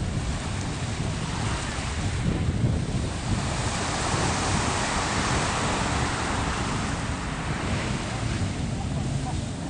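Small surf washing onto a sand beach, with wind buffeting the microphone as a steady low rumble. The wash swells and fades away about four to six seconds in.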